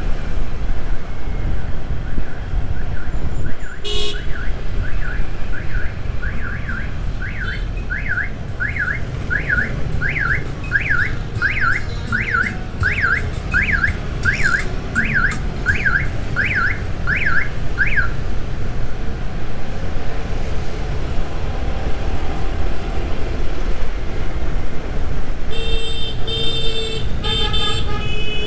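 An electronic siren or alarm, a tone sweeping up and down about twice a second, grows louder over steady street traffic and cuts off suddenly about two-thirds of the way through. Near the end a vehicle horn sounds three short times.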